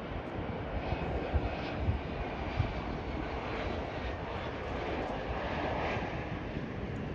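Jet engines of a Boeing 737 airliner running as it rolls along the runway: a steady distant rush with a faint high whine, swelling slightly about two-thirds of the way through.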